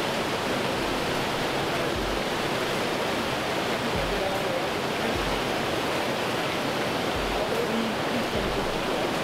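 Mountain stream rushing over rocks through a small cascade: a steady hiss of running water.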